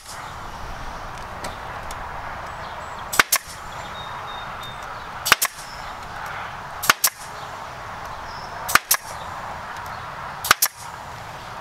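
Pneumatic nail gun firing five times, about every two seconds, each shot a sharp double snap as it drives a fastener through wire mesh into the wooden frame.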